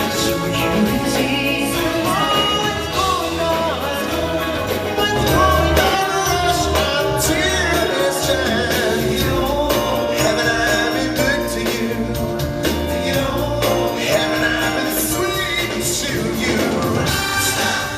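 Live soul-pop music: a vocal group singing in harmony over a band with bass and tambourine.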